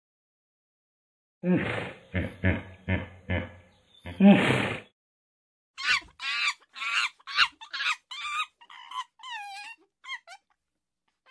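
Animal calls: after a short silence, a quick series of short low-pitched calls and one louder call, then a run of shorter, higher-pitched calls about two a second that fade out near the end.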